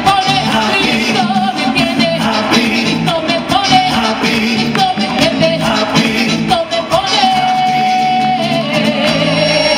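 A woman singing solo through a microphone over instrumental backing, holding one long note near the end before sliding down.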